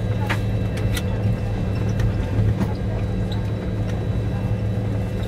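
Steady flight-deck noise of a DC-9-14 taxiing: a continuous low hum from its Pratt & Whitney JT8D engines and cockpit equipment, with a few faint steady whines above it. A couple of faint clicks come in the first second.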